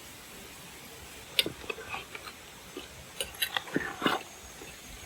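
A handful of scattered, irregular clicks and knocks. The sharpest comes about a second and a half in, and a cluster follows between three and four seconds in.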